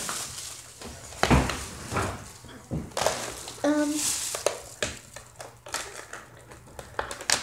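A hand squishing and squeezing a large batch of lumpy borax-and-glue slime in a plastic container: irregular wet squelches and crackles.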